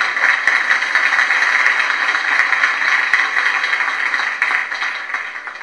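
Audience applauding: a dense run of clapping that thins and fades out near the end.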